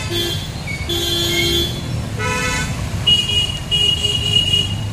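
Vehicle horns toot several times, short and longer blasts, the longest near the end, over the steady low running of motorcycle engines in traffic.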